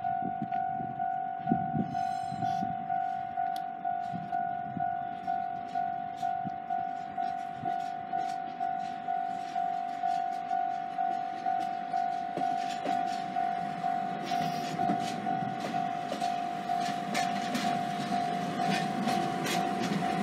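Japanese level-crossing warning bell ringing in an even beat, about one and a half strikes a second, as a DE-class diesel locomotive hauling a passenger car passes. The locomotive's engine rumble and wheel clicks grow louder in the second half as it draws near.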